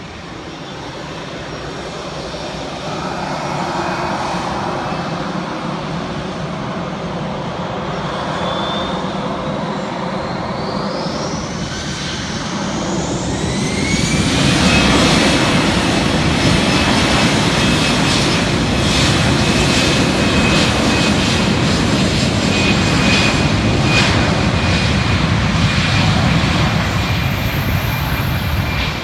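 Airbus A320's jet engines spooling up for takeoff. A whine rises in pitch over several seconds, and about fourteen seconds in it settles into loud, steady engine noise at takeoff thrust.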